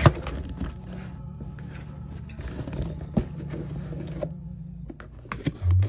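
A cardboard shipping box being opened by hand: the flaps and packing tape rustle and scrape, with a few sharp clicks and knocks, over faint background music.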